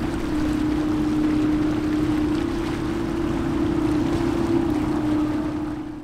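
Wind and water noise with a steady low hum, fading out near the end.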